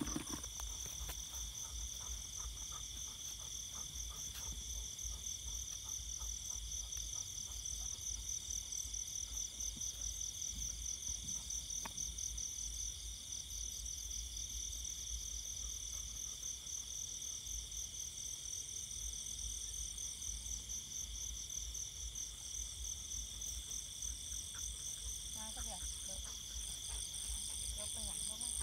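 Night chorus of insects and frogs after rain: several steady, high-pitched trills layered together, one of them pulsing rapidly, over a low rumble.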